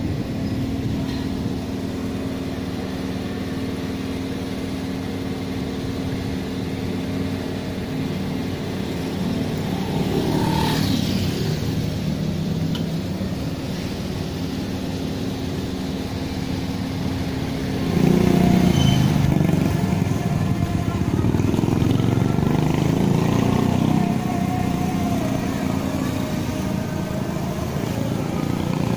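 Street traffic: a steady engine hum, with motor vehicles passing. One goes by about a third of the way in, and a louder one from about two-thirds of the way in lasts several seconds.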